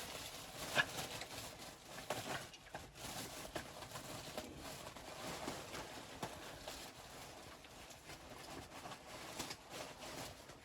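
Footsteps crunching in snow, an uneven run of short crunchy steps.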